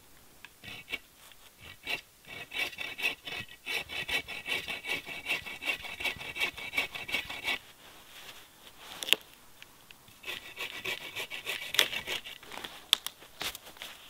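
A small hand saw cutting through a dead fallen log in quick back-and-forth rasping strokes. It stops for a couple of seconds partway through, then saws again briefly, with a few sharp knocks in between.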